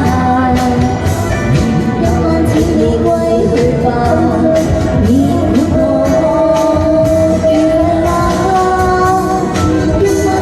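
A pop song: a sung vocal line with held notes over a backing track with a steady beat.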